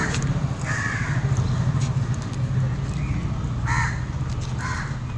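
Crows cawing, about five short calls spread through a few seconds, over a steady low hum.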